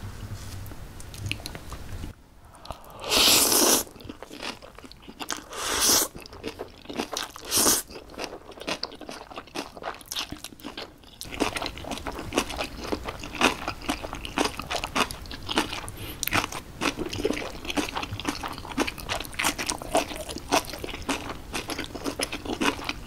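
Close-miked eating of Chapagetti black-bean noodles with spicy napa cabbage kimchi: three short, loud noodle slurps in the first eight seconds, then steady wet chewing with many small crunches of the kimchi cabbage.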